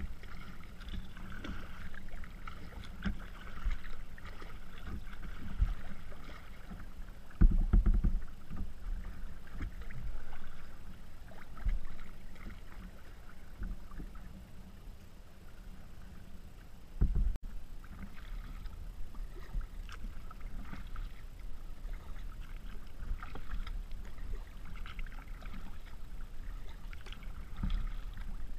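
A kayak being paddled on open, choppy water: water splashing and lapping against the hull with the paddle strokes, with a few low thumps, the loudest about seven and a half seconds in and again about seventeen seconds in.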